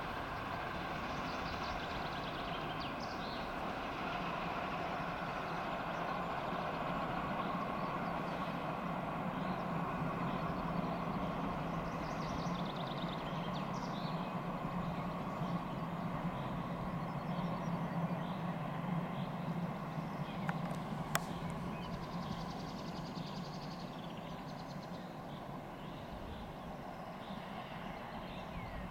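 DR class 65.10 steam tank locomotive working a passenger train, its exhaust and running gear blending into a steady rumble heard from a distance. A sharp click about two-thirds of the way through.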